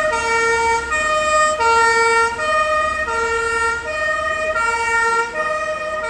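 German fire engine's two-tone siren (Martinshorn), alternating steadily between a lower and a higher note, switching about every three-quarters of a second.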